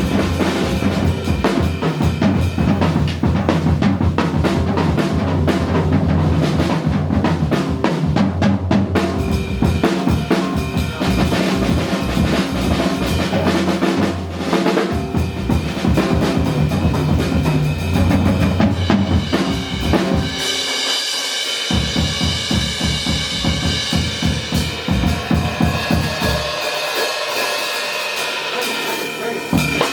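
Live jazz band playing, with the drum kit prominent: steady drum strikes and cymbals under bass, piano and held melody notes.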